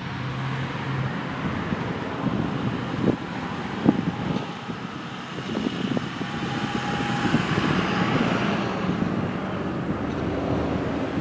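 Road traffic noise: a vehicle passing, the sound swelling and easing off.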